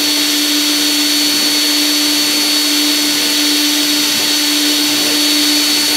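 Cordless drill running at a steady speed, spinning a short rod pin in its chuck while a file is held against the tip to round over a burr. It makes a steady motor whine with a hiss and cuts off abruptly at the very end.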